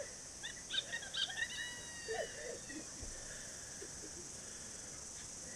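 Birds calling in a quick run of short chirps and whistled notes in the first half, over a steady high-pitched hiss of insects.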